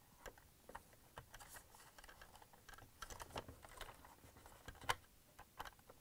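Faint, irregular small plastic clicks and taps as a wire-harness connector is handled and pushed onto the start button switch of a Bosch dishwasher control panel, with a slightly louder click about five seconds in.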